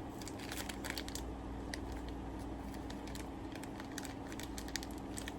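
Light clicking and rustling as the small accessory parts of a vape atomizer and their little plastic bag are handled, with many quick irregular ticks through most of the stretch over a steady low hum.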